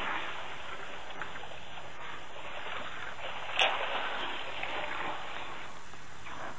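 Steady sloshing and splashing of water as elephants drink and wade at a waterhole, with one sharp click about halfway through.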